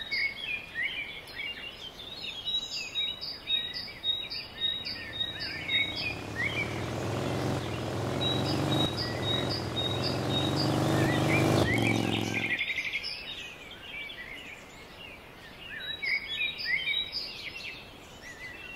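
A motorcycle engine comes in about six seconds in, running and growing louder, then cuts off suddenly just past the middle. Birds chirp and tweet throughout, one repeating a quick series of short high notes.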